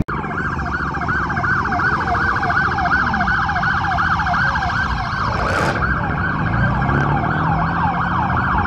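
A siren sounding a fast yelp, its pitch sweeping up and down about three to four times a second, over a low rumble of car engines.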